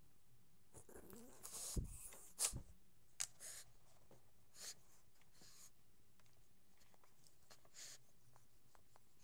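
Faint short sniffs and rustles from a pug nosing at a laptop, with two soft thumps and a few light clicks about two to three seconds in.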